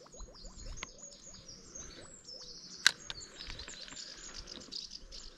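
Small songbirds chirping and twittering in the background, with one sharp click a little under three seconds in.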